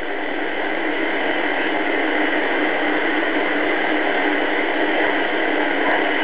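Steady shortwave static hiss from a BC-312G valve receiver's speaker, tuned between stations with no signal coming through.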